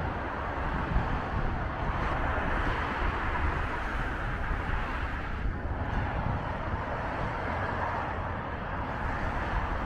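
Steady rushing of road traffic on a multi-lane highway, with wind rumbling on the microphone.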